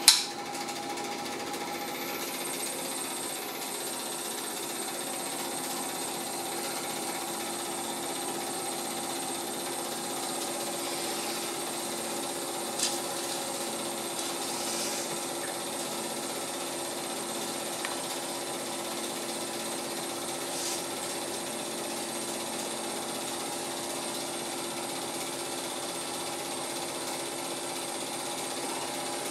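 Cine film projector running steadily, a constant mechanical whir and chatter of the motor and film transport, with a brief click about 13 seconds in.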